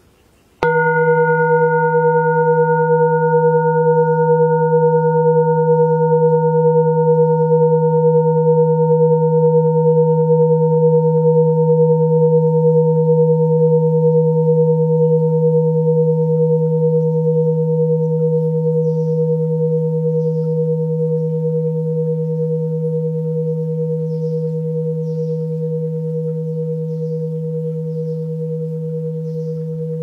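A hand-forged copper bowl struck once and ringing like a singing bowl: a low hum under several clear higher tones, held for a long time and fading only slowly in the second half.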